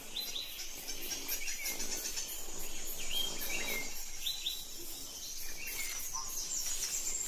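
Birds giving short, high chirps every half second or so, over a steady high trill and faint forest ambience.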